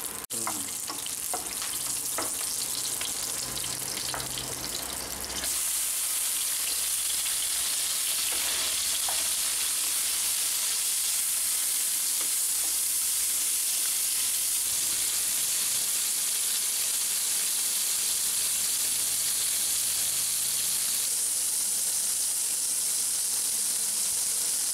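Green chillies and chopped tomatoes frying in hot oil in a nonstick pan, a steady sizzle. It grows louder about five seconds in and then holds steady, with a few light clicks in the first seconds.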